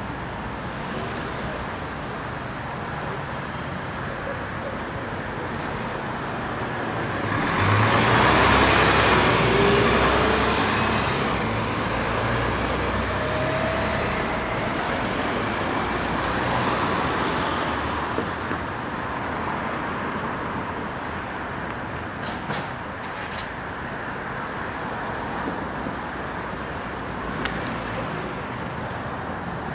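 Street traffic passing on a city road. A large motor vehicle passes close about eight seconds in, the loudest moment, then fades over several seconds.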